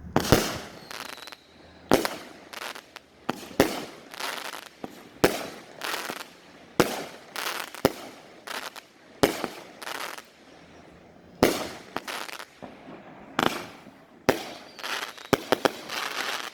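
Fireworks going off: an irregular string of sharp bangs, one or two a second, each trailing off in a short echo, stopping near the end.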